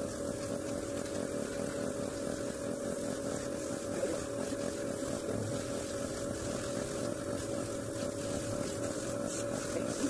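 Small airbrush air compressor running with a steady, even hum while the airbrush sprays paint.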